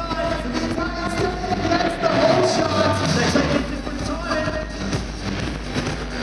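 Music with a singing voice played loudly over an indoor arena's sound system.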